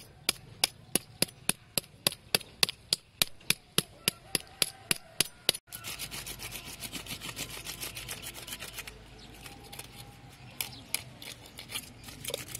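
Knife blade scraping the scales off a whole fish on a wooden chopping block. First come sharp, regular strokes about four a second; after a sudden break about five and a half seconds in, a quieter, faster run of scraping follows.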